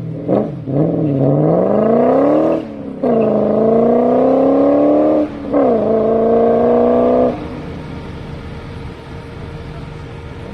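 The 4.9-litre V8 exhaust of a BMW E39 M5 accelerating hard through the gears. The note climbs in pitch with two short breaks for upshifts, then drops away suddenly about seven seconds in, leaving a quieter steady road hum.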